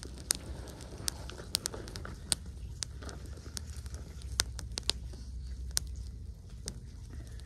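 Small fire of dry grass and twigs crackling, with sharp, irregular pops over a steady low rumble.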